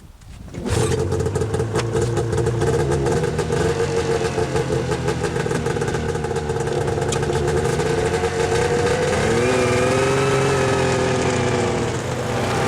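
A vehicle engine starts up less than a second in and runs steadily, its pitch rising as it revs up about nine seconds in and then easing back.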